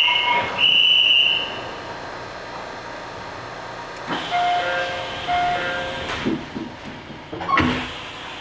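A high electronic departure buzzer on the station platform sounds and stops about a second and a half in. Then the train's two-note door chime plays twice, high then low, and the doors shut with two thuds.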